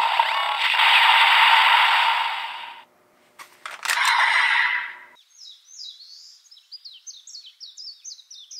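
Electronic music and effects from a DX Desire Driver toy belt fitted with the Beat Raise Buckle, cutting off just before three seconds in. A few sharp clicks and another short burst of toy sound follow. A flock of Eurasian tree sparrows then chirps repeatedly through the rest.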